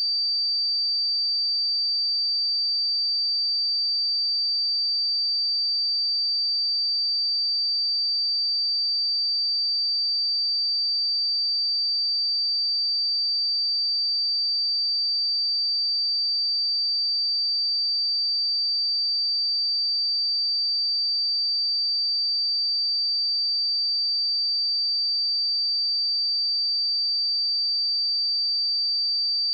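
A steady, high-pitched 4645 Hz sine-wave test tone, one pure pitch held at a constant level.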